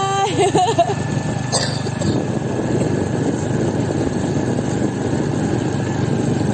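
Steady low drone of motor scooter engines mixed with wind rush while riding along a road. A drawn-out shout ends just as it begins, followed by a brief vocal squeal, and there is a single click about a second and a half in.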